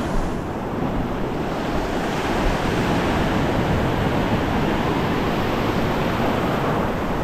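Ocean surf washing up a sandy beach, a steady rush of breaking waves with some wind on the microphone.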